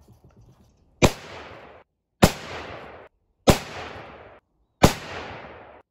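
Four shots from a bolt-action .30-06 rifle with an 18-inch barrel, fired unsuppressed. They come about a second and a quarter apart, and each has a short echo that cuts off suddenly.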